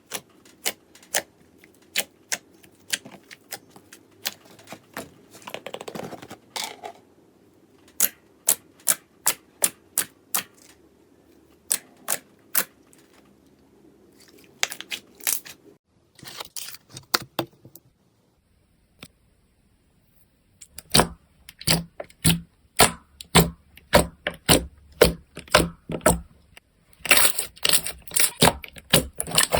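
Slime being squeezed and pressed by hand, making sharp crackling clicks and pops, often about two a second. After a brief silent gap past the middle, the clicks come louder, each with a dull thud beneath it.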